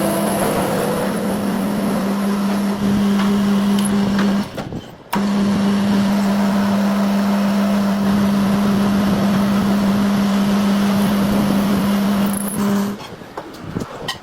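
A machine or power tool running with a steady hum and hiss. It cuts out for about half a second a little over four seconds in, starts again, and stops near the end.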